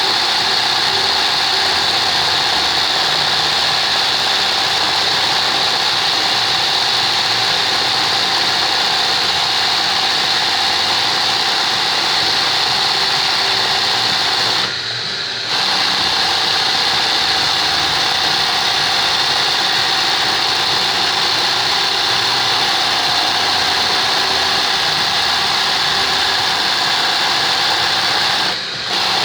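Sewing machine running fast and steady while stitching manual embroidery. It stops briefly about halfway through and again near the end.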